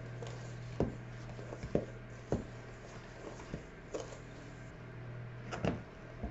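Wooden spoon stirring flour into creamed shortening and sugar in a stainless steel mixing bowl, with several irregular knocks of the spoon against the metal bowl.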